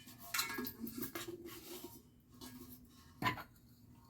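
Handling of a new metal whistling kettle: light clinks and knocks for the first second or so, then a single sharper knock about three seconds in.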